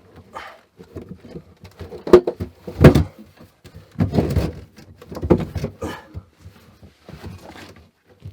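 A cooler being handled and set into place in a stone cellar: irregular knocks, bumps and scrapes, the loudest two sharp knocks about two and three seconds in.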